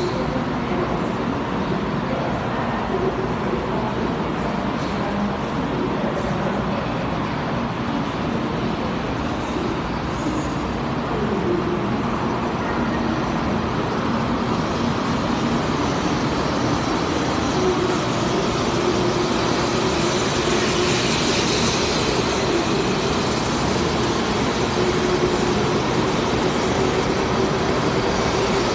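Taiwan High Speed Rail 700T train pulling out of an underground platform and picking up speed: a steady rumble of wheels and motors with a faint hum that grows gradually louder.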